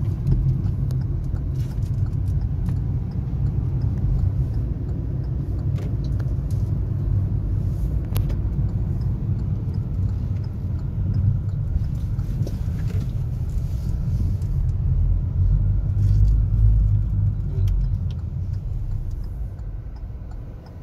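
Low, steady road and engine rumble of a car being driven, heard from inside the cabin, dying away over the last few seconds.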